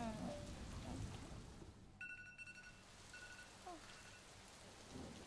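Steady rain falling, faint, with a few short electronic beeps near the middle.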